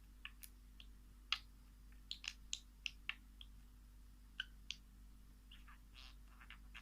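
Small birds giving faint, short, sharp chirps, a dozen or so scattered at irregular intervals.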